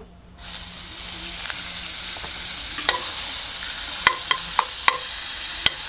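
Butter sizzling as it melts in a hot kadai: a steady hiss that starts about half a second in, with a few short, sharp clicks in the second half.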